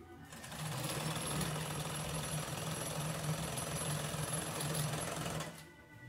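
Overlock (serger) sewing machine running at speed, stitching along a fabric seam. It starts about half a second in and stops shortly before the end.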